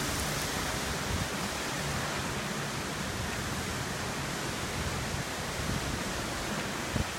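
Steady rushing noise of storm wind and rain, with gusts buffeting the microphone as a rough low rumble. There are a couple of short knocks near the end.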